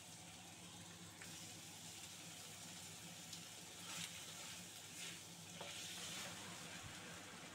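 Chicken pieces, sliced Chinese sausage and shallots sizzling faintly in a wok, with a spatula stirring and scraping through them a couple of times about halfway through.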